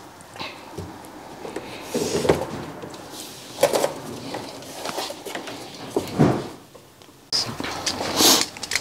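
Handling noises at a workbench: a few separate knocks and clatters as cables and small parts are moved, then a busier stretch of rustling and clicking near the end.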